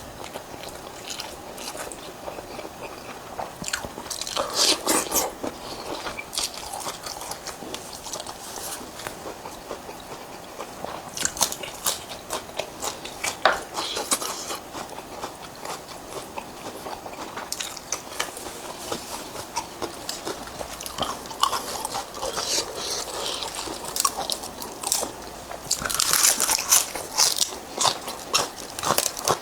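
Close-miked eating: crisp crunching bites and chewing of crunchy food, coming in clusters with quieter chewing between, loudest near the end.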